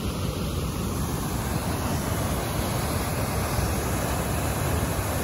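Steady rushing of a small waterfall pouring over rock, with wind buffeting the microphone.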